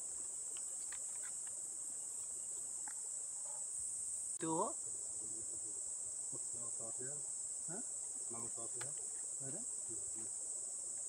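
Steady, high-pitched, unbroken shrill of forest insects such as cicadas or crickets.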